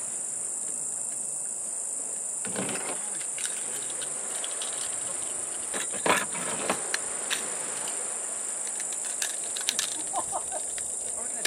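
Steady high-pitched drone of cicadas. Over it come a few light sharp clicks of metal pliers and treble hooks as the hooks are changed on a fishing lure; the loudest click is about six seconds in.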